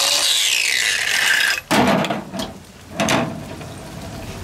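Hyper Tough 20-volt cordless 4-inch angle grinder running free on a fully charged battery, its whine falling in pitch as it winds down after the trigger is let go, stopping about a second and a half in. Two short clunks follow as the tool is handled.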